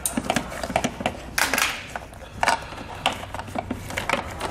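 Irregular plastic clicks and rustling from gloved hands working a wiring harness and its connector behind the ACC sensor's plastic bracket, with a louder scrape about a second and a half in.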